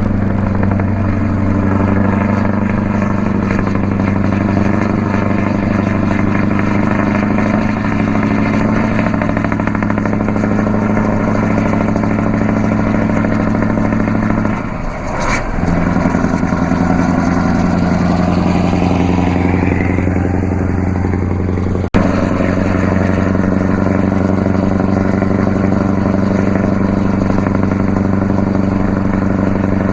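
Scania S650's V8 diesel with an open (straight) exhaust pipe running steadily at highway cruising revs, a deep, even note. About halfway through the note drops out briefly and returns, and a single sharp click comes a few seconds later.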